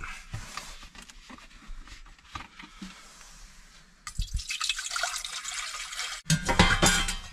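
Water poured into a cooking pot: a few small knocks at first, then a steady pour from about four seconds in that grows fuller and louder near the end.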